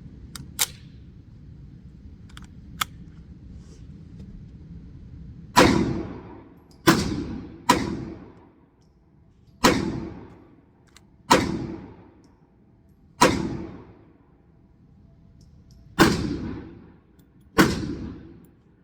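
Kel-Tec PMR30 pistol firing .22 WMR rounds: eight single shots at uneven spacing, each trailing off in an echo, after a couple of faint clicks.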